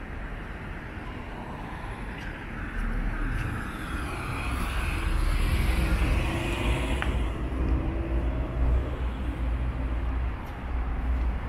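A car passing on a city street: its tyre and engine noise swells to a peak about halfway through, then fades, over a steady low rumble of traffic.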